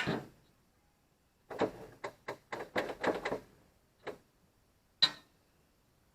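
Sharp clicks and a short run of clattering knocks, with no engine running: a few single clicks and, about a second and a half in, a quick two-second rattle of knocks.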